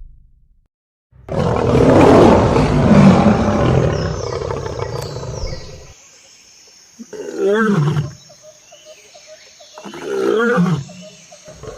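Lion roaring: one long, loud roar starting about a second in, followed by two shorter, deeper calls that fall in pitch, a couple of seconds apart.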